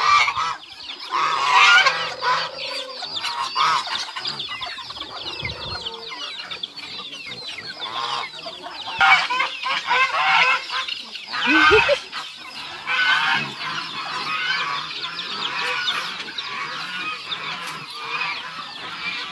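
A large mixed flock of farmyard poultry, with geese, ducks, guinea fowl and chickens, calling all at once in a continuous din of overlapping clucks and honks. The birds are hungry and waiting to be fed.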